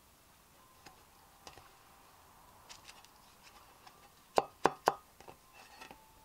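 Thin 1 mm aluminium sheet handled with gloved hands: a few faint clicks, then three sharp knocks in quick succession about four and a half seconds in, with a brief metallic ring after them.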